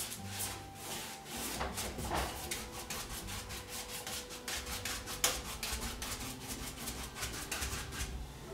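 Stiff paintbrush scrubbing paint across a stretched canvas in quick, firm, repeated strokes, a dry rubbing scrape, as the sky colours are worked together.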